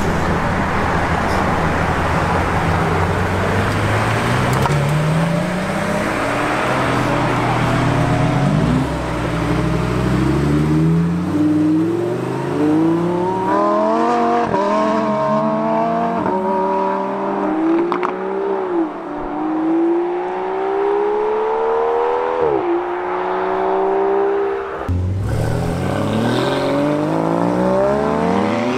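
Supercars accelerating hard away one after another, among them a V12 Lamborghini Aventador and a V10 Lamborghini Huracán STO. A low engine rumble gives way to engine notes climbing in pitch that drop sharply at each upshift, three upshifts in a row through the middle. A fresh run starts climbing near the end.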